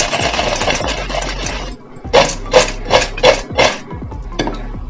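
Crisp deep-fried potato pieces rattling in a steel colander as it is shaken. Then five sharp knocks about a third of a second apart, with one more near the end.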